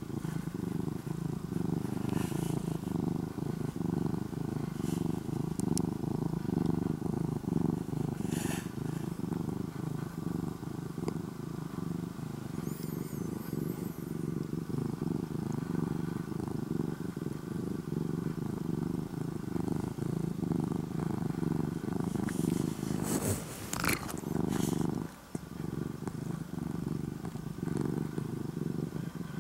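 An orange-and-white domestic cat purring steadily and close up, with a brief break in the purr near the end.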